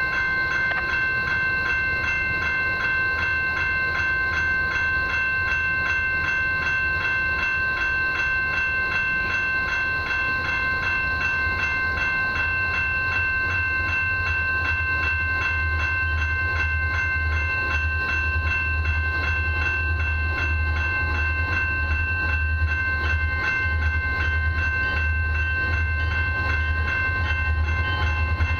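Level-crossing warning bell ringing in rapid, even strokes with the gates down, over the low rumble of approaching diesel locomotives that grows stronger from about halfway.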